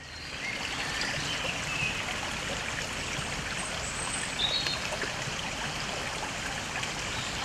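Steady rush of running water, fading in over the first second, with a few short high chirps over it.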